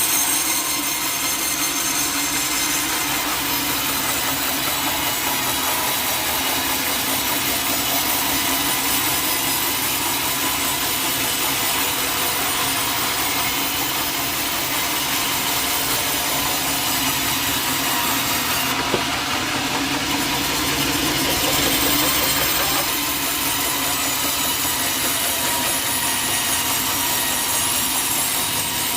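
Sawmill saw cutting through teak wood, a steady, continuous sawing sound with a single sharp click about two-thirds of the way through.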